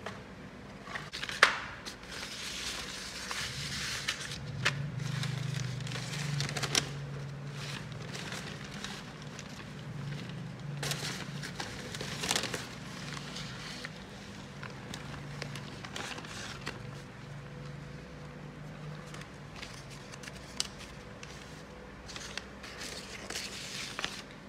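Paper being handled and wiped with a cloth: newspaper and printout sheets rustling and crinkling, with scattered sharp clicks and taps. A low steady hum runs underneath.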